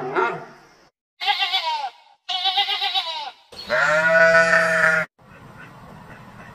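Sheep bleating: two short, quavering bleats, then a longer, deeper bleat that cuts off about five seconds in.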